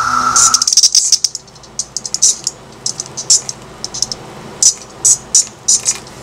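A held electronic drone cuts off about half a second in. It gives way to short, high-pitched buzzing chirps of insect sound samples, clustered at first and then sparse and chopped into an uneven, stuttering rhythm.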